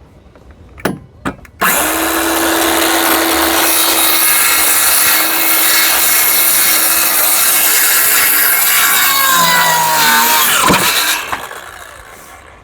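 Electric circular saw started and cutting through a board for about eight seconds, then winding down, its whine falling in pitch as it fades. Two short knocks come just before it starts.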